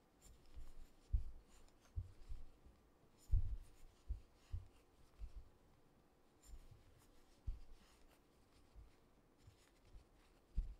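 Quiet rubbing and scratching of hands working a 9 mm crochet hook through chunky blanket yarn, with soft low bumps about once a second as the work is handled.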